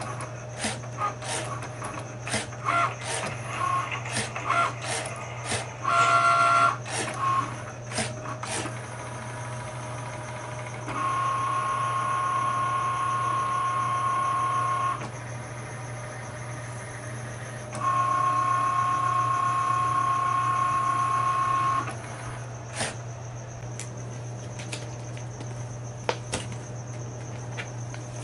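Cricut Maker cutting machine at work, its motors whining as the carriage and mat move. At first it goes in quick stop-start blips and clicks, then in two steady whines of about four seconds each, then a few clicks.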